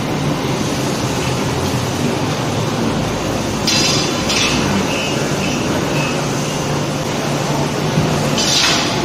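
Steady forge-shop machine noise as a pre-forging press works hot shackle blanks, with short hissing bursts about four seconds in and again near the end.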